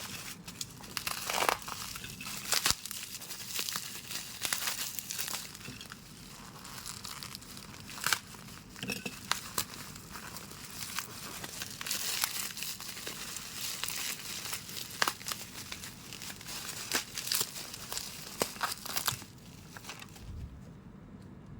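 Plastic parcel packaging crinkling and rustling as it is handled and torn open, with sharp crackles throughout, dying down near the end.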